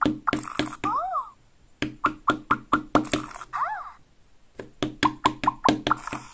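LEGO Super Mario interactive Peach figure tapped repeatedly on the tabletop as it is hopped along, about four plastic knocks a second in two runs with a pause in the middle. Short electronic blips and two rising-then-falling chirps from the figure's speaker sound between the taps.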